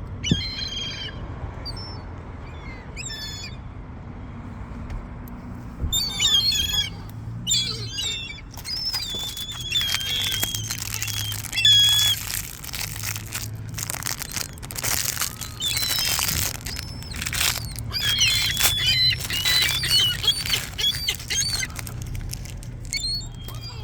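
Gulls calling and squawking: a few scattered calls at first, then many birds calling over one another from about six seconds in, thinning out near the end. A low steady rumble runs underneath.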